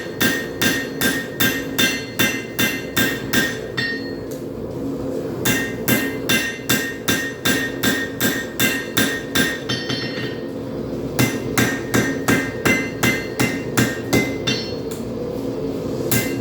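Hand hammer striking a hot railroad spike on the anvil at about three blows a second, each blow ringing, in runs broken by two or three short pauses. A steady low roar runs underneath.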